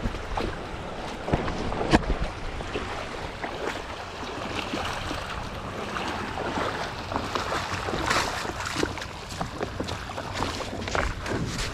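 Wind buffeting the microphone over water lapping and splashing against a kayak, with scattered knocks and clicks, a few sharper ones in the first two seconds.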